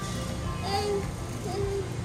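Background music over a low steady hum, with faint voices; two short pitched sounds stand out about a second in and again near the end.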